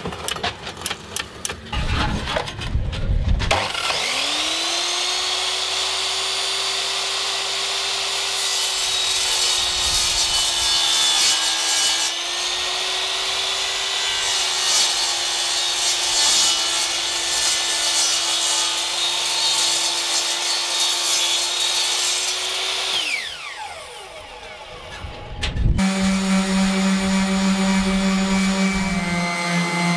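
A sliding compound mitre saw cutting aluminium angle: a few clunks as the stock is set, then the motor spins up about four seconds in, runs steadily through the cut and winds down with a falling whine around 23 seconds. From about 26 seconds a handheld random orbital sander runs steadily, sanding two-pack paint off an aluminium hull.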